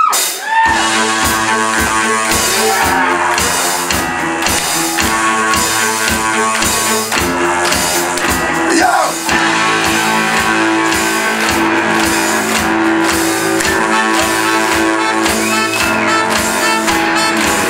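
Live rock band playing a song's instrumental opening: a steady kick-drum beat, about two to three a second, under electric guitars, bass and sustained brass.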